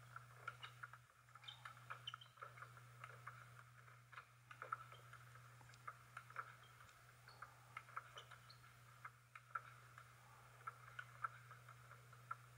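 Faint celluloid table tennis ball clicking off bats and table in a long fast rally, a quick irregular run of sharp ticks over a steady low hum.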